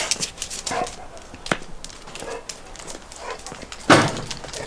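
American Staffordshire terrier giving a few short barks and yips, the loudest about four seconds in, among scattered clicks.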